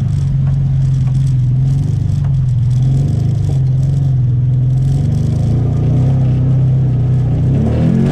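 A vehicle engine running steadily under way, its pitch wavering slightly, rising a little near the end.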